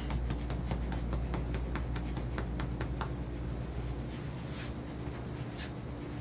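Quick, scratchy strokes of a grooming comb through a dog's thick coat: a rapid run of short strokes that thins out to a few scattered ones after about three seconds, over a steady low hum.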